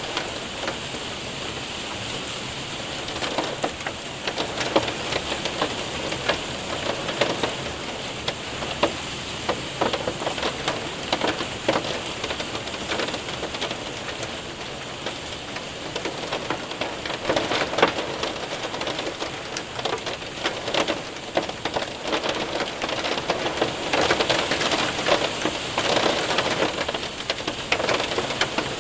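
Hail and heavy rain pelting a window and roof: a dense, steady patter of many small sharp ticks that swells and eases in waves.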